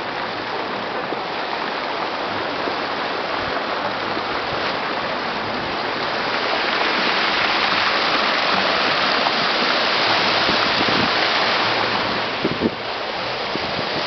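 Ornamental fountain jets splashing into a pool: a steady rush of falling water that grows louder from about halfway through. A few low bumps near the end.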